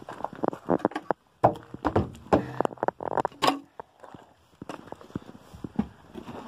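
Footsteps and knocks on the floor of an old caravan as someone moves around inside, with a short pitched creak in the middle.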